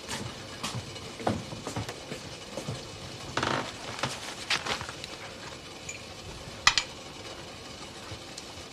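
Scattered light clinks and knocks of small household objects being handled, over a steady hiss. The sharpest knock comes a little before seven seconds in.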